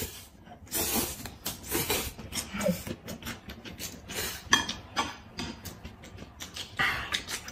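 Close-up eating sounds: noodles slurped and a raw cucumber bitten and chewed, a busy run of short wet slurps and crunches.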